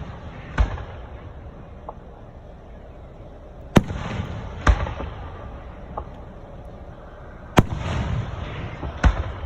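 Aerial firework shells bursting in the sky: sharp bangs, each with a rumble trailing after it. They come in pairs, one a bit under a second after another, once near the start and twice more in the middle and near the end, with a few fainter pops between.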